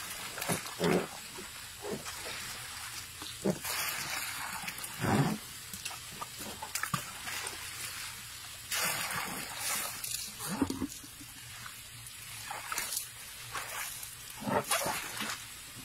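Water splashing and sloshing in a plastic tub as a baby elephant stirs it with its trunk and front foot, coming in bursts several times, with a few short sharp sounds between the splashes.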